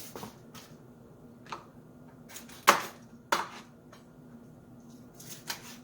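Knife chopping through raw chicken wings on a cutting board: scattered sharp knocks, the loudest two about half a second apart near the middle.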